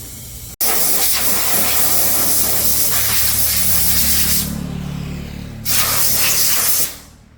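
Loud hissing of a high-pressure jet, switched on suddenly, eased off briefly and then opened up again before cutting off, with a low machine hum underneath.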